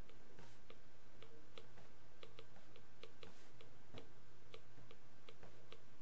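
Stylus tip clicking and tapping on a tablet screen during handwriting: light, irregular clicks, about three a second, over a low steady hum.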